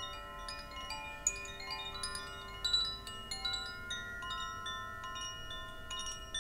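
Hand-held cylindrical Koshi-style chime, gently swayed so it rings in an irregular shower of bell-like tinkling notes that overlap and ring on.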